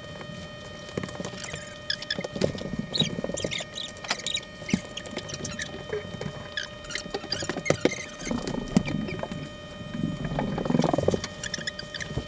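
Glass bottle of water heating in a frying pan over a gas flame, not yet boiling: irregular small ticks, crackles and faint chirps, with low rumbling swells about two seconds in, about eight seconds in and again near the end, under a faint steady hum.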